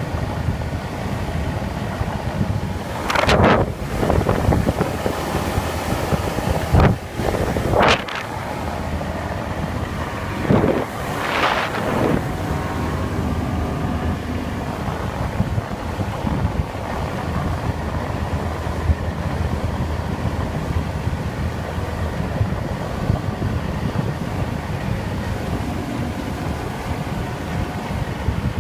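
A boat under way: a steady engine rumble under wind buffeting the microphone and the wash of water, with several louder gusts of wind noise in the first twelve seconds.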